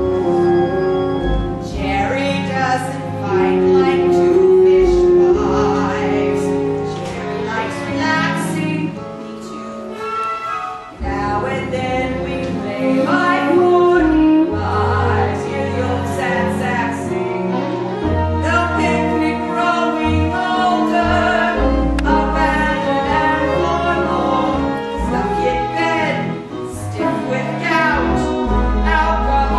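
A woman singing a show tune over instrumental accompaniment, with sustained low bass notes under the melody.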